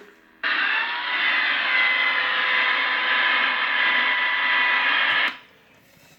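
Electronic sound effect from the small speaker of an R2-D2 sound-effects accessory: a loud static-like hiss with faint steady tones in it, switching on suddenly and cutting off just as suddenly after about five seconds.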